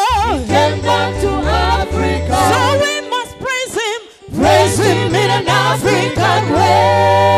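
Live gospel praise-and-worship music: a singer with strong vibrato over a steady bass line. The music thins out briefly about four seconds in, then a long held note comes near the end.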